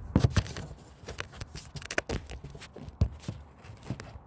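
A rapid, irregular run of sharp clicks and knocks, thickest in the first second and again about two seconds in.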